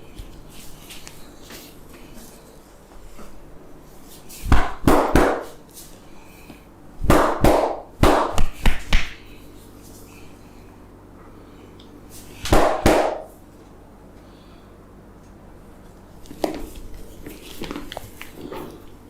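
Hands slapping and tapping rhythmically on a head during a barber's head massage, in quick bursts of several strikes. Loud bursts come about five seconds in, around eight seconds and around thirteen seconds, with a softer patter near the end.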